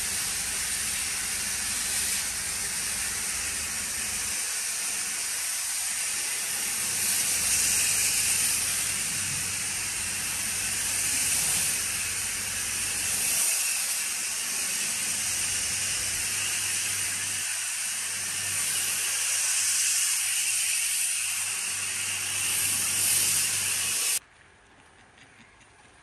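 Pressure-washer foam lance spraying snow foam onto a truck: a loud, steady hiss that swells and eases as the spray moves over the bodywork. It stops abruptly near the end, leaving only faint sound.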